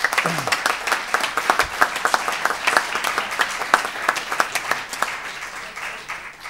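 Applause from a roomful of people, many hands clapping, thinning and fading out near the end.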